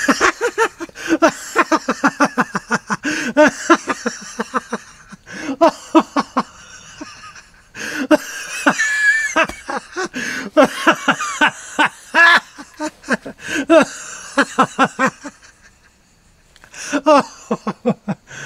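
A person's hearty, loud laughter in long runs of rapid 'ha-ha-ha' pulses, several a second, with a wheezy high-pitched stretch partway through and a short pause for breath near the end.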